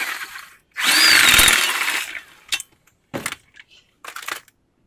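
Impact wrench with a 19 mm socket tightening the nuts on the strut-to-steering-knuckle bolts. It makes a long run of about a second and a half with a whine that changes pitch, then several short bursts as the nut seats.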